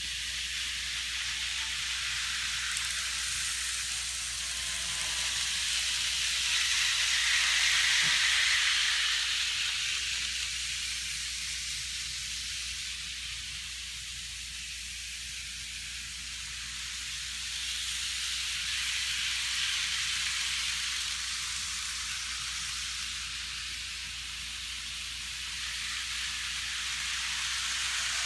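Model train running on the layout track: a steady hissing whir of small wheels and motor that swells twice as it comes near on its loop and fades as it goes away, then grows louder again near the end as an EF510 locomotive hauling tank cars rushes past.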